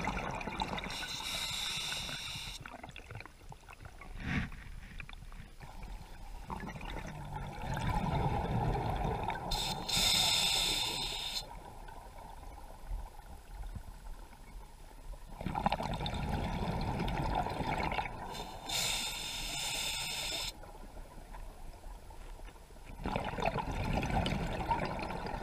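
Scuba diver breathing underwater through a regulator: a short hiss of inhalation followed by several seconds of exhaled bubbles, in a slow cycle that repeats about every nine seconds.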